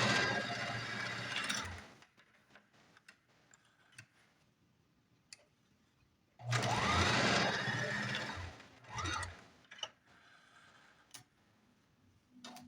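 Singer Simple 3337 electric sewing machine stitching in two short runs. The first is already going and stops about two seconds in. The second starts about six seconds in with a rising motor whine and runs about three seconds, with faint clicks of handling in between.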